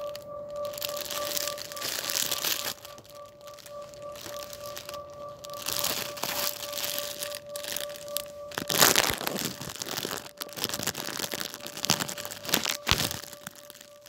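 Rustling and crinkling of a carried shopping bag and handling noise, with a few sharp knocks near the end. A steady tone hums underneath, dropping out about two-thirds of the way through.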